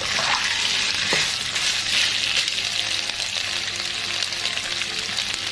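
Catfish pieces in red curry paste sizzling in hot oil in a nonstick wok, a steady frying hiss, with a single knock about a second in.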